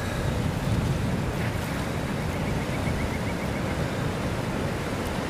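Ocean surf breaking and washing up a sandy beach, a steady rush of water, with wind blowing across the microphone.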